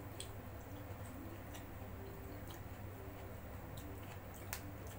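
Faint close-up eating sounds: a person chewing and working rice and side dishes by hand on a paper and banana-leaf wrapper, heard as scattered soft clicks, the sharpest about four and a half seconds in, over a steady low hum.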